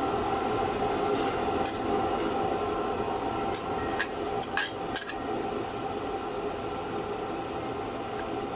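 A few sharp clinks of a glass bowl and a metal ladle against a metal wok, about four to five seconds in, over a steady hum.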